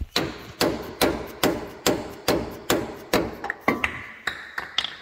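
A mallet repeatedly striking an alignment tool to drive a Bronc Buster control-arm bushing into a Ford Bronco's lower control arm. About ten steady blows come at roughly two and a half a second, each with a short ring, followed by a few lighter, uneven taps near the end. The bushing is going in but has not yet bottomed out.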